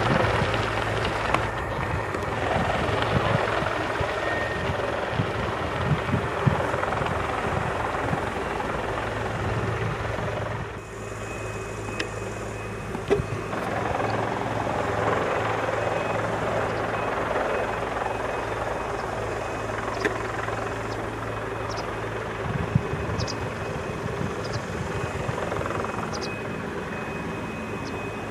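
Bell 412 twin-turbine helicopter hovering just above the ground: steady rotor and turbine noise over a low hum, with a thin high whine joining about halfway.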